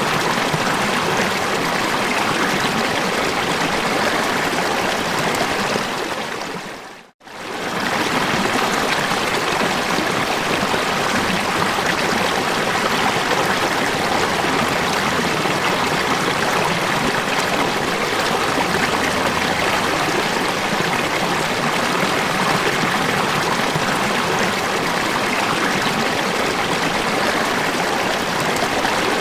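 Steady rush of falling water. The sound fades out about seven seconds in and fades straight back in, like a loop restarting.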